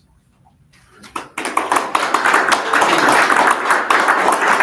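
Audience applauding, a dense patter of many hands clapping that starts about a second in after a brief hush.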